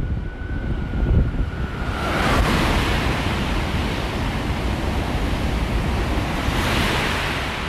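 KTX high-speed train running through the station without stopping: wind buffets the microphone at first, then from about two seconds in the loud, steady rush of the train at speed takes over.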